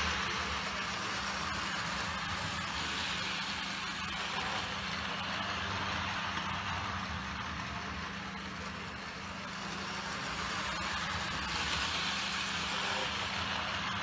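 HO-scale AHM Rivarossi Bowker steam locomotive with a cab-mounted motor running around a small loop of brass track with its passenger cars, a steady motor and wheel-on-rail sound. It is fainter midway and grows louder near the end as the train comes close.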